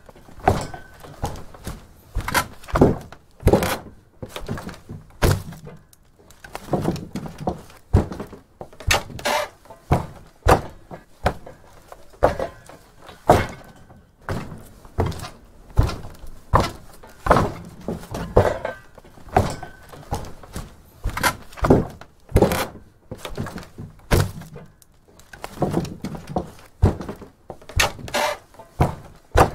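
Footsteps on a wooden attic floor: a run of dull thuds, walking in uneven stretches with short pauses between them.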